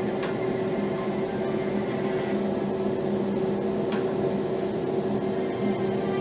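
A Samsung Galaxy S23 Ultra ringtone playing a steady, droning sustained tone with a low hum beneath it and two faint ticks, one just after the start and one about four seconds in.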